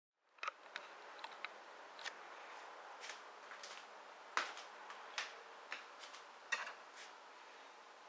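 A dozen or so light, irregular clicks and taps over faint room noise, the loudest about halfway through.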